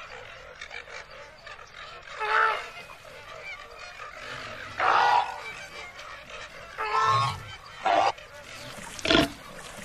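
Flamingos honking: a handful of short, goose-like calls a second or two apart.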